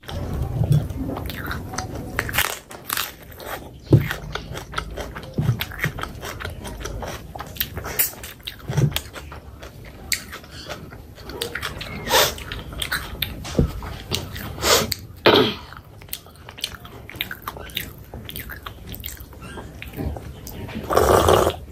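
Close-miked chewing and biting of curried meat: wet mouth smacks and sharp crunches at an uneven pace, with one louder noisy sound lasting about a second near the end.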